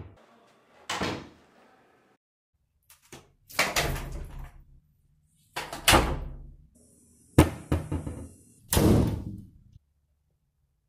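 Doors being shut one after another: about five separate slams, one to two seconds apart, each dying away quickly, the last about ten seconds in.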